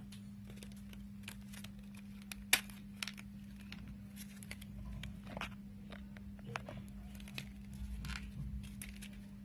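Cosmetic packaging and lipstick cases being handled: scattered small clicks and crinkling, with one sharper click about two and a half seconds in, over a steady low hum.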